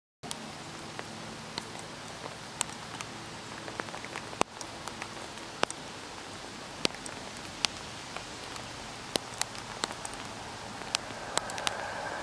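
Steady rain hiss with sharp ticks of single drops landing close by, a few a second. Near the end a steady hum begins to rise beneath it: an approaching train.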